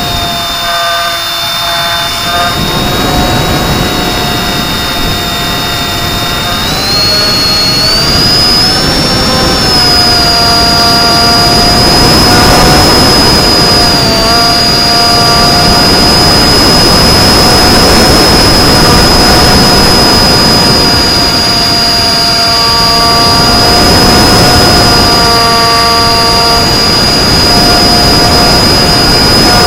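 Electric motor and propeller of an FPV flying wing in flight, running with a steady high whine over rushing wind noise. The whine rises in pitch about seven seconds in as the throttle is opened, then holds.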